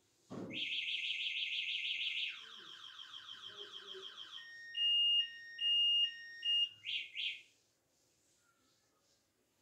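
Electronic alarm-like sound: a rapid, even warbling tone for about two seconds, then a lower warble, then a few steady beeps and two short chirps, stopping about seven and a half seconds in.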